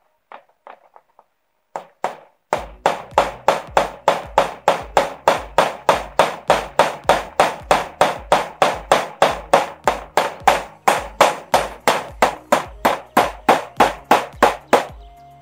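A hammer striking in a fast, even rhythm, about three to four blows a second. It starts about two and a half seconds in and stops just before the end, after a few light knocks.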